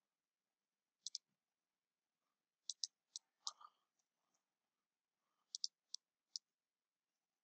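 Computer mouse button clicks: a quick double click about a second in, then two short clusters of sharp single and paired clicks, with near silence between them.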